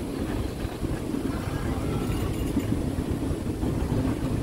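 Steady low rumble of a moving passenger train, heard from on board a coach.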